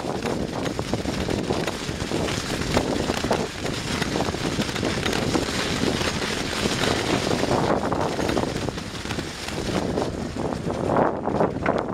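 Wind rushing over the microphone while riding a bicycle along wet, slushy paving, with steady tyre noise and many small rattles and clicks from the bike going over the paving stones.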